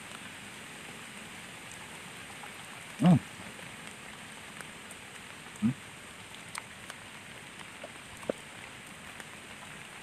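Steady rain falling, an even hiss throughout, with a couple of brief hums from a person's voice about three seconds in and again near six seconds.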